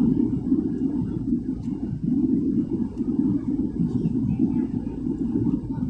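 Jet airliner cabin noise in flight: the steady, low-pitched noise of the engines and rushing air, heard inside the cabin.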